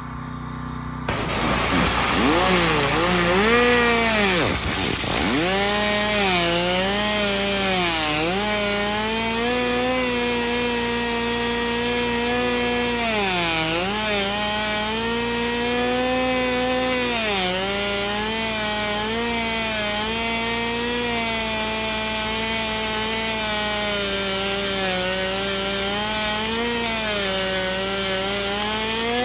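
A pressure-washer jet spins a bike wheel, making a buzzing, chainsaw-like drone over the hiss of the spray. It starts about a second in, swoops up in pitch at first, then holds fairly steady with several brief dips and recoveries as the spin slows and picks up.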